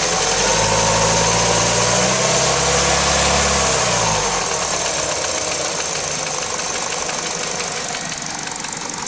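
EP6 1.6-litre four-cylinder petrol engine revved briefly and falling back to idle after about four seconds, with a knocking 'tukh-tukh-tukh' that the owner cannot identify.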